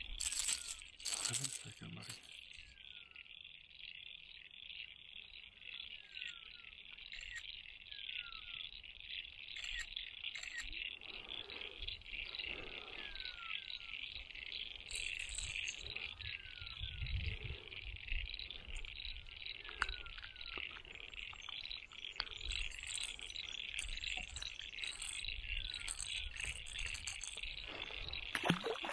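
A steady, high-pitched chorus of frogs calling without a break, with short falling chirps every second or two over it and a few sharp clicks near the start.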